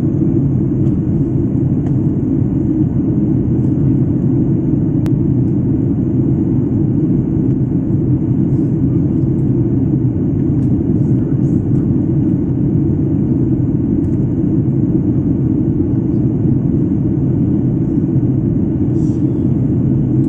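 Jet airliner cabin noise in flight: a steady, loud low rumble of engines and rushing air, heard from a window seat.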